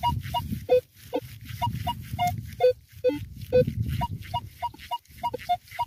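Metal detector sounding a target tone as the coil is swept over buried metal: a quick, irregular run of short beeps that jump between a lower and a higher pitch, over a low rumble.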